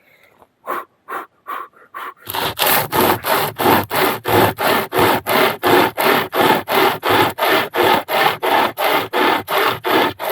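Two-person hand saw cutting through wood, pulled alternately from each end. A few slow strokes at first, then a steady rhythm of about three strokes a second from about two seconds in.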